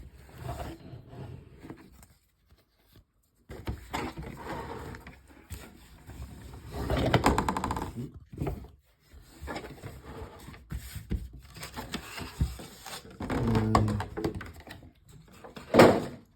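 Cardboard and plastic packaging of a trading-card collection box being handled and rummaged through, in irregular rustling and scraping bursts. There is a short pitched sound a little before the end.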